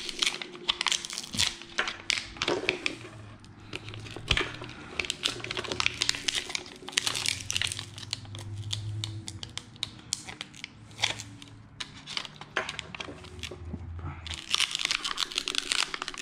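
Plastic blister pack of coin-cell batteries being worked open by hand: irregular crinkling and crackling of plastic and card.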